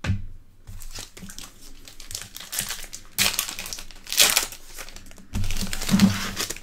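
Foil wrapper of a 2019 Donruss Optic football card pack crinkling and tearing as it is ripped open by hand, with several louder tearing bursts in the second half.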